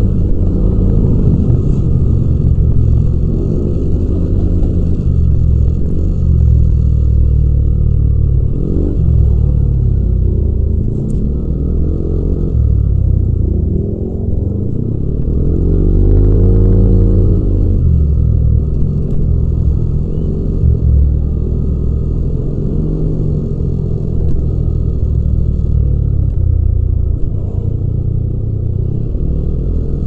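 Yamaha Aerox 155 scooter's liquid-cooled single-cylinder 155 cc four-stroke engine running under way, its pitch rising and falling as the throttle is opened and eased off several times, with the strongest pull about sixteen seconds in.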